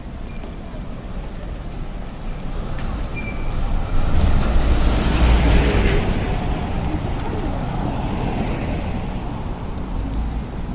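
City street traffic, with a vehicle passing close about four seconds in, its rumble and tyre noise swelling for a couple of seconds and then fading back into the steady background traffic.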